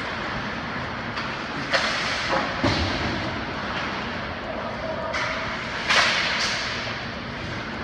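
Ice hockey skates scraping across rink ice, with a few sharp cracks of stick and puck during shots on the goalie; the loudest crack comes about six seconds in.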